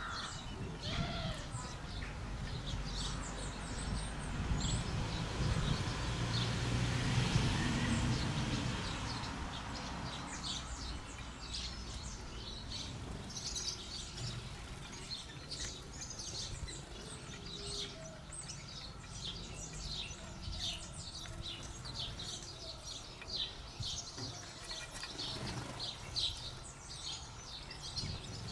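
Small garden birds chirping and calling over and over in quick, short high notes. A low rumble swells and fades during the first third.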